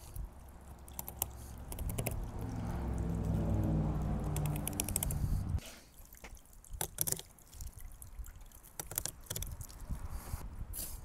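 Water running at a fish-cleaning table, stopping suddenly about five and a half seconds in, followed by dripping and scattered small clicks of the filleting work.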